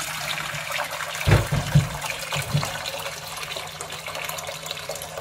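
Water poured in a steady stream into a stainless-steel wok, splashing on the pan's bottom as it fills, with a few low thumps between about one and three seconds in.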